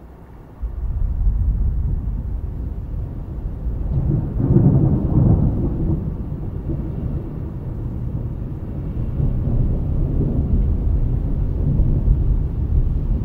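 A long, deep roll of thunder. It breaks in suddenly about a second in, swells to its loudest around the middle, and keeps rumbling low.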